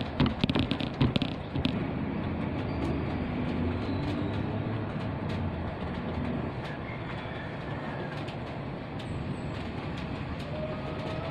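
Steady rain falling, an even hiss without a rhythm. A quick run of small clicks comes in the first second or two.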